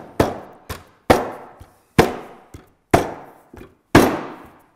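A fist pounding a round wooden stool top down onto the through tenons of its legs, seating the through-mortise joint. About six sharp, loud knocks, roughly one a second, each with a short ringing tail.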